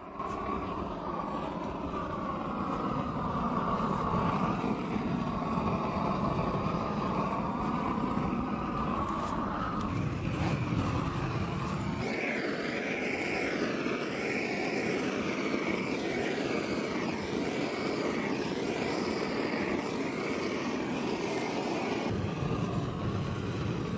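Lincoln Electric Inferno long-handled propane roofing torch burning with a steady rushing roar of flame as it heat-shrinks polyethylene sheeting. Its tone shifts abruptly about halfway through and again near the end.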